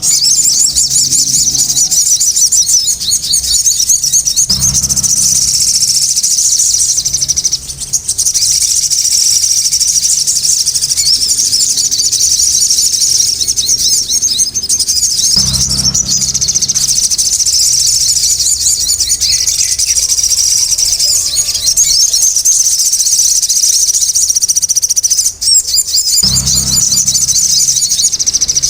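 A sogon songbird singing without a break in fast, high-pitched, busy chattering. Dull low thuds come three times, about eleven seconds apart.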